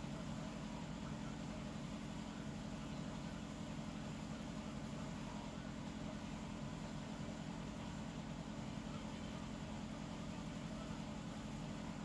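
Steady low hum with a soft hiss, unchanging throughout, with no rise and fall of breathing or snoring.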